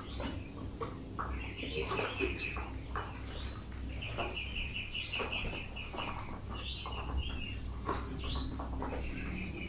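Young Muscovy ducks peeping in quick runs of high, evenly spaced calls, several runs in a row, with short clicks of bills pecking feed from a trough.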